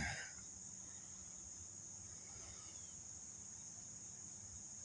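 Faint, steady high-pitched chorus of insects in the woods. A short, louder sound comes right at the start.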